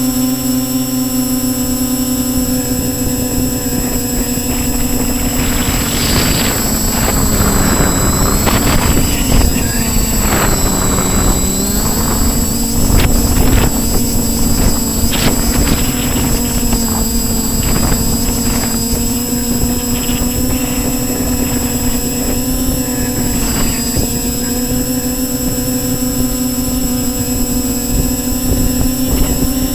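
Quadcopter's electric motors and propellers whining steadily, heard through the onboard camera, with wind rushing over it. The whine drops in pitch about ten seconds in and climbs back as the throttle changes.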